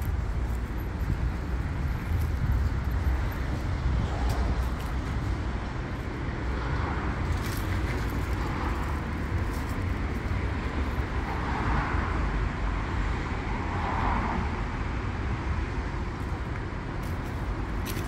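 Steady urban road traffic: cars running past on a city street, a continuous low rumble with a few passing swells.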